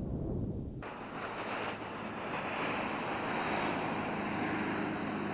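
Wind buffeting the microphone, then, about a second in, a passing motorboat: a steady engine hum under a broad hiss of rushing water and air.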